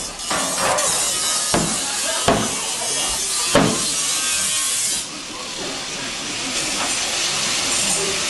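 A loud, steady hiss with a few sharp percussive strikes over it. About five seconds in, the hiss cuts off suddenly and a quieter hiss carries on.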